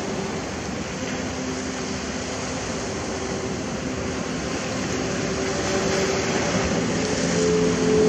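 Sea waves washing in on a sandy shore, a steady rush that grows louder over the last few seconds. A faint, steady engine hum runs underneath.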